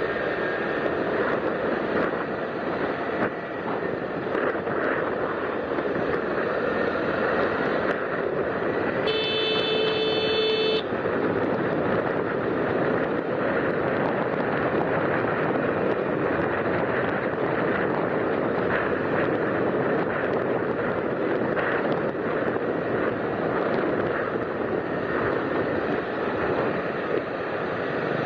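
Steady traffic and road noise from a moving vehicle, with a vehicle horn (klakson) sounding once, held for about two seconds, about nine seconds in.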